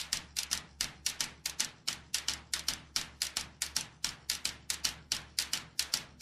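A steady run of sharp ticking clicks, about five a second, over a faint low hum.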